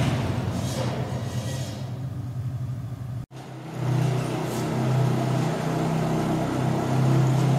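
ATV engine running steadily with a low hum. The sound cuts out abruptly for a moment a little past three seconds in, then resumes.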